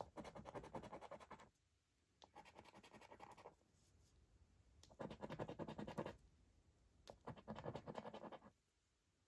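Rapid scratching of the scratch-off coating on a Cashword Extra scratchcard, in four bursts of a second or so each with short pauses between, as the letter squares are uncovered.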